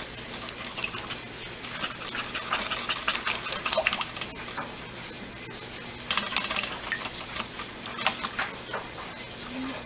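Upturned glass jar of herb-infused oil being shaken inside a cloth milk bag over a metal mesh strainer: rapid rustling with small clicks and clinks, in two spells with a short pause between them.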